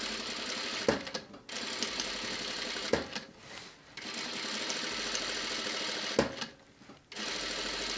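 Sewing machine stitching horsehair braid along a crinoline's edge, running in steady stretches. It pauses briefly three times, with a click at the start of each pause.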